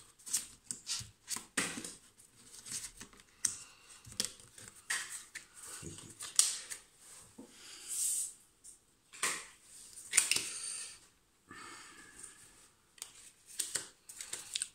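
Tarot cards being handled on a wooden table: irregular taps, clicks and papery card rustles as the cards are gathered and shuffled.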